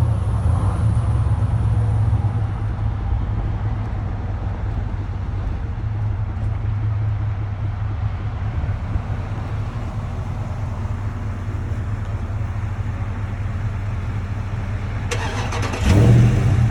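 Buick Electra 225's V8 engine idling with a steady low rumble, then a sudden louder burst of noise near the end.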